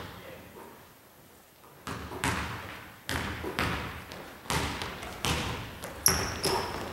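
A basketball dribbled on a hardwood gym floor, starting about two seconds in: about eight unevenly spaced bounces, each with a short echo in the hall. Near the end, two short high squeaks, like sneakers on the floor.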